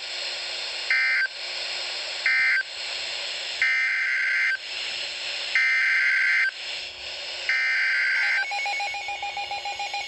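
Emergency Alert System SAME data bursts over steady radio hiss: the last two short end-of-message bursts of one warning, then three longer header bursts, each about a second, that announce the next alert, a tornado warning. Near the end a pulsing alert tone begins.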